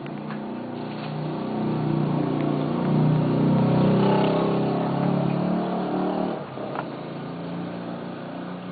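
An engine running, growing louder over the first few seconds and then dropping away sharply about six and a half seconds in, followed by a single click.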